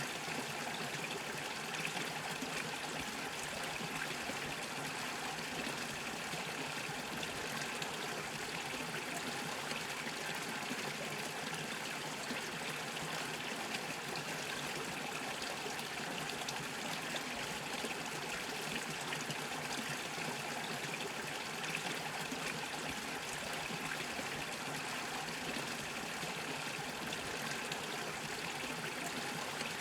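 Small mountain brook bubbling and trickling over stones, a steady even rush of water.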